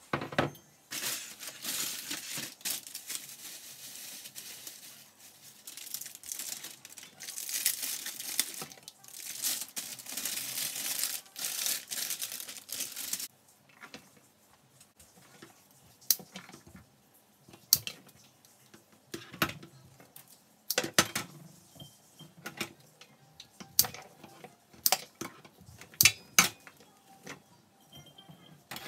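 Wrapping on a bunch of carnations crinkling and tearing as it is pulled off, for about the first half. After that, a run of separate sharp snips and clicks as the stems are trimmed with scissors and handled over a steel sink.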